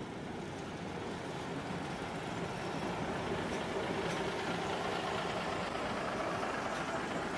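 Vintage ČSD 'Modrý šíp' diesel railcar and its trailer car pulling away past, engine running and wheels rolling on the rails in a steady, even sound that swells slightly.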